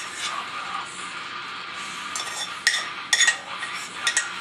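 Metal saucepan knocking and clinking against a glass baking dish as thick refried beans are tipped and scraped out of it: a few sharp clinks bunched between about two and three and a half seconds in.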